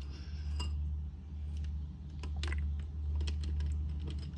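Loose metal automatic-transmission parts being handled, giving a series of irregular light clicks and clinks, one with a brief metallic ring about half a second in, over a steady low hum.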